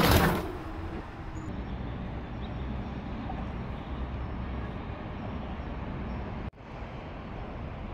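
Steady outdoor road and wind noise with a low rumble, after a loud rush at the very start. It drops out abruptly for an instant about six and a half seconds in, then carries on.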